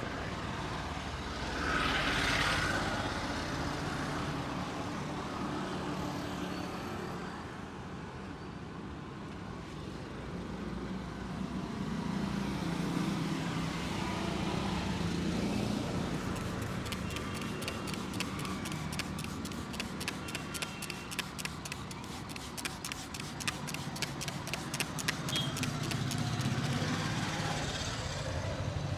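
Steady street traffic noise. Through the second half comes a long run of quick, even taps, about four to five a second, that stops near the end.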